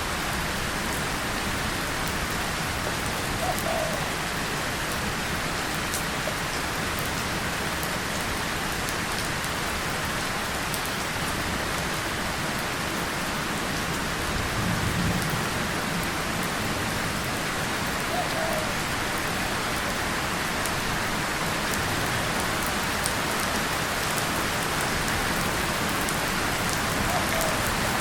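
Steady rain falling on a tin surface and leaves, with a low rumble of distant thunder about halfway through.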